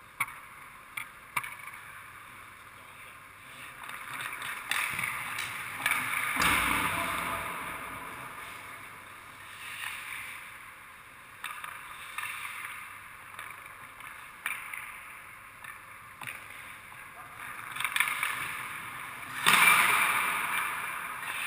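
Hockey skate blades scraping and carving on rink ice, with sharp clacks of stick and puck. The longest, loudest scrapes come about four to eight seconds in and again near the end, with a low thud about six and a half seconds in.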